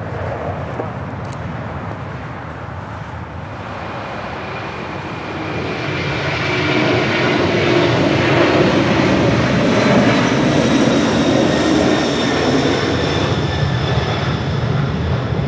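Boeing 747 four-engine jet climbing out at takeoff power. The jet noise builds from about five seconds in to its loudest past the middle, with a high engine whine over it.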